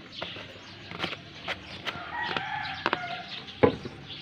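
A rooster crows in the background, starting about two seconds in and lasting about a second, amid clicks and knocks from a plastic shampoo bottle being handled. The loudest is a sharp knock near the end.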